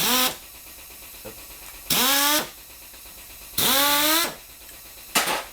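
Air-powered impact driver backing out engine cover screws in four short bursts, each an air hiss with the motor's whine rising in pitch as it spins up; the third burst is the longest.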